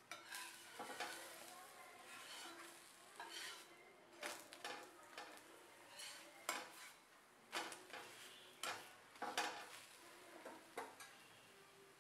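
A metal spatula scraping and knocking on a tawa as an adai is lifted and flipped: about a dozen short, sharp scrapes and taps over a faint sizzle.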